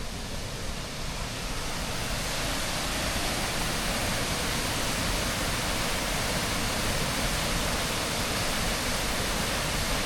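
Steady rush of fast-flowing river water, a continuous hiss and roar that grows a little louder over the first couple of seconds and then holds level.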